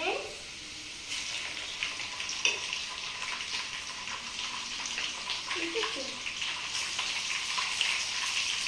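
Chopped onions frying in hot oil in an aluminium pot, a steady sizzling hiss with fine crackles.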